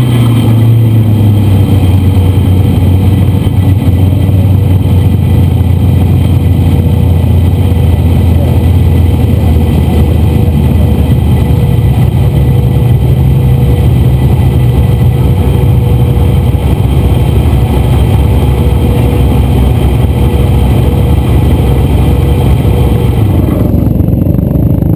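Sand rail's engine running loud and steady while driving over sand dunes, heard from inside the open roll-caged cab.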